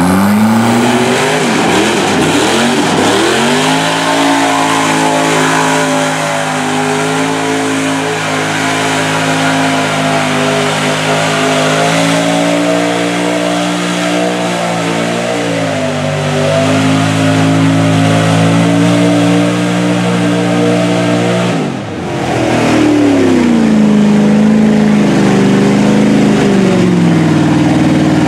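Engines of lifted mud trucks on oversized tires revving hard in a mud pit, the pitch climbing, holding high for long stretches, then sagging and rising again. The sound breaks off sharply about three-quarters of the way through and picks up with another engine revving.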